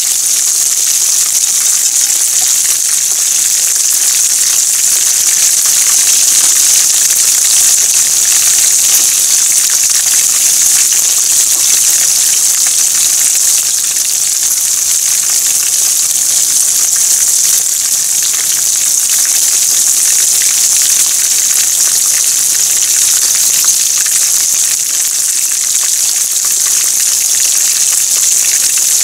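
Chicken karaage deep-frying in hot oil: a loud, steady sizzle.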